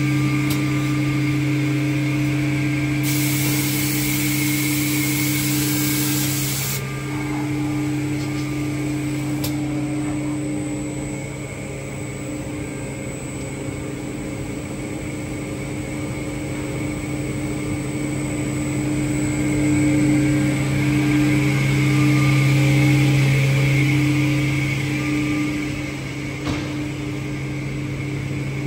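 PRO-45A tilting edge banding machine running, its motors giving a steady hum. A hiss joins in about three seconds in and stops about four seconds later, and the machine grows louder for a few seconds near the end.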